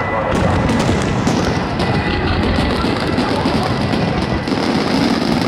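A dense barrage of aerial fireworks shells bursting in quick succession, with overlapping bangs and crackle merging into one continuous loud din. Music plays underneath.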